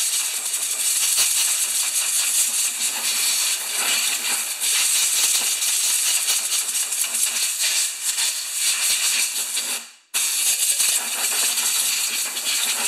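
A steady, loud spray hiss as cleaner or air is blown into the mower's carburetor choke to clear dirt out of it. It breaks off briefly about ten seconds in, then resumes and stops just before the end.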